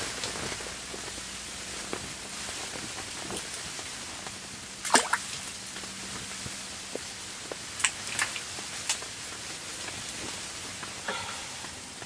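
Steady hiss under a faint low hum, broken by a few scattered sharp ticks and taps. The loudest tick comes about five seconds in, and a small cluster follows around eight to nine seconds.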